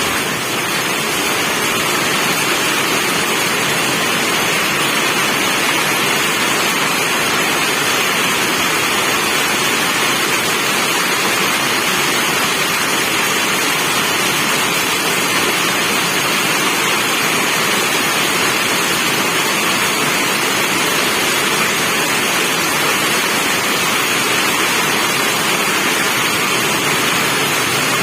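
Rain falling steadily: a dense, even hiss with no single drops standing out.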